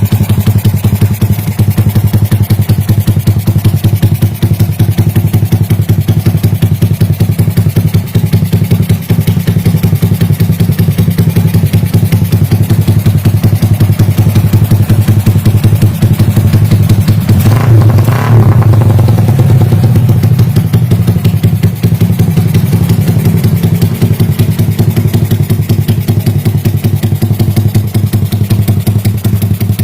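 Suzuki Raider 150's single-cylinder four-stroke engine idling through an aftermarket muffler, loud with a fast, even pulse. About eighteen seconds in it is revved once briefly, then drops back to idle.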